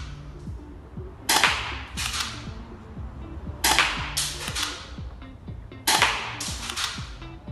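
KWC K17 spring-powered airsoft pistol (a Glock 17 replica) firing three shots, a little over two seconds apart. Each shot is a sharp crack that trails off over about a second, with a few small clicks after it.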